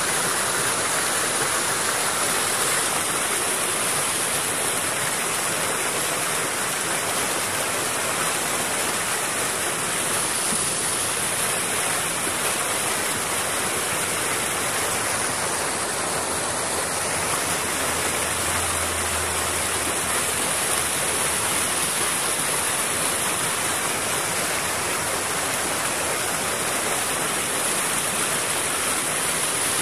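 Fast-flowing floodwater rushing and churning through a swollen stream, a steady, unbroken rushing noise.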